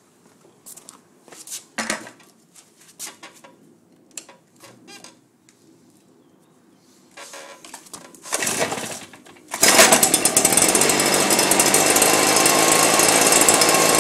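A few knocks of handling, then the recoil starter of a Stihl BR420 Magnum backpack blower is pulled twice on a cold start. Its 56.5 cc two-stroke engine catches on the second pull, about ten seconds in, and runs loud and steady.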